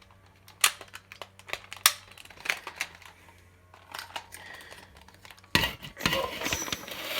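Hard plastic parts of a DX Desire Driver toy belt clicking and clattering as raise buckle holders and a buckle are pushed into place: a string of sharp separate clicks, then louder handling and scraping from about five and a half seconds in.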